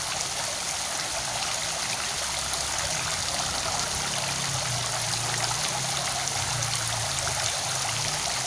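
Running water: a steady, even trickling rush with no breaks, and a faint low hum underneath.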